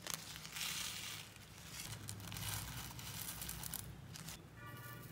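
Small plastic bag crinkling as sequins are shaken and squeezed out of it, in two rustling stretches. A brief high pitched tone sounds near the end.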